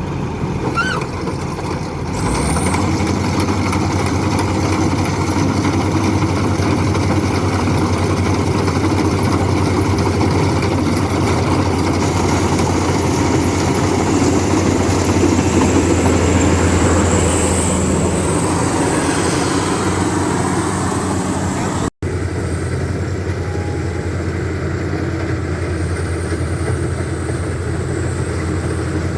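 A large engine running steadily at a constant speed, starting up about two seconds in and holding a low, even drone. There is a brief break near the end.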